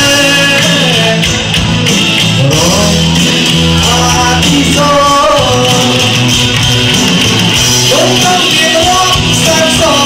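Live pop band playing loudly, with keyboards, electric guitar and drums under a sung melody.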